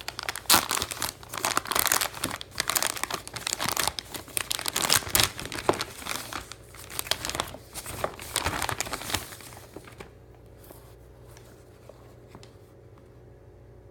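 Packaging being unwrapped by hand, crinkling and rustling for about nine and a half seconds, then stopping, with only a few faint clicks after.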